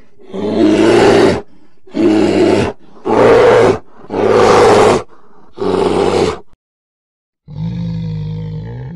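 Bear roaring: five loud, rough roars about a second apart, then after a short pause a longer, steadier call begins near the end.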